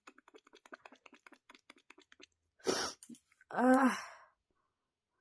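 A woman tickling inside her nostril to force a sneeze: faint rapid ticking, then a sharp breathy burst and a loud "aah" falling in pitch, about a second apart.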